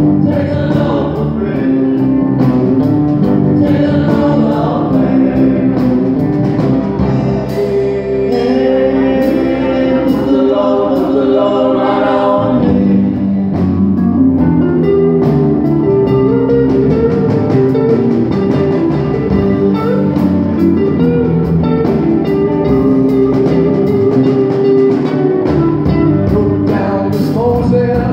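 A live band of electric guitars and a drum kit playing a song, with voices singing together.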